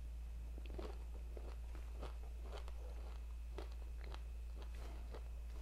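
Close-up crunchy chewing of a bite of a hard-crusted patty of grains, nuts and beans: irregular crunches every few tenths of a second, over a low steady hum.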